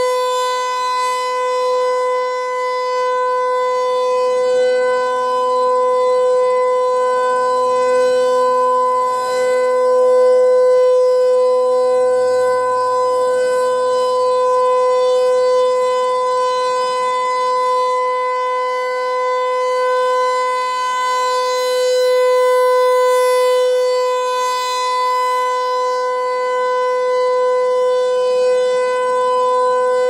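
Federal Signal 508 rotating electronic siren sounding a steady, unchanging tone during a test. Its loudness swells and fades slowly as the speaker head rotates, facing toward and away from the listener.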